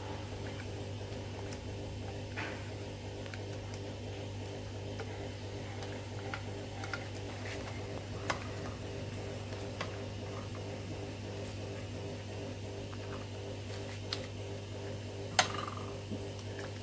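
Plastic spoons stirring a thick egg batter with shredded vegetables in a stainless steel bowl: scattered light clicks and scrapes against the bowl, with a sharper knock about fifteen seconds in. A steady low hum runs underneath.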